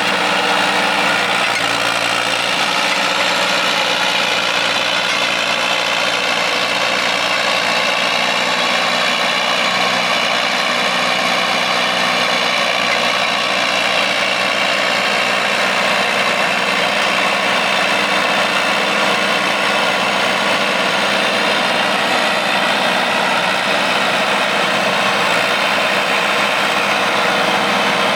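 John Deere 450C crawler loader's diesel engine running steadily at idle.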